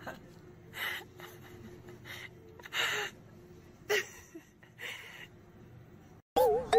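A cat sniffing and snorting into loose catnip: about five short, breathy bursts roughly a second apart over a faint steady hum. Music with wavering tones cuts in near the end.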